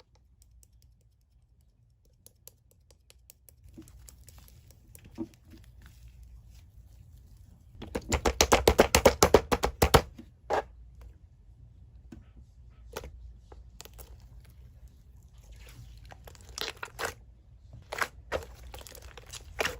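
Slime being handled and squished, with sticky crackling and sharp clicking pops as air pockets snap; about eight seconds in comes a quick run of loud pops, several a second for about two seconds, then scattered single pops.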